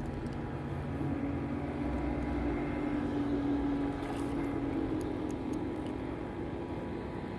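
Motorboat engine droning as it passes, swelling to its loudest a few seconds in and then fading.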